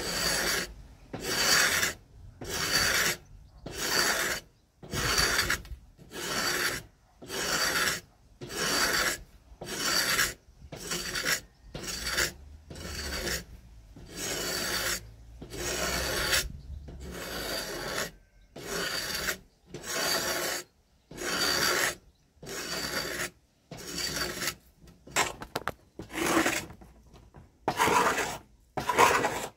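A hand-held woodworking blade shaving bark and wood from a wooden staff in repeated scraping push strokes, about one a second.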